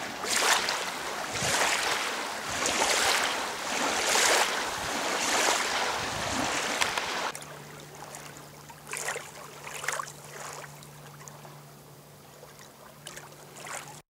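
Small waves lapping and washing over a pebbly shore, a swell of water noise about every second. About halfway through the washing drops quieter and a steady low hum comes in beneath it, and the sound cuts off suddenly at the end.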